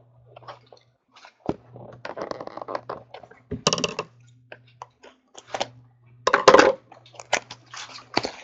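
A stack of trading cards being handled: cards rustling and flicking against each other, with irregular sharp taps as they are set down. The loudest tap comes about two-thirds of the way through.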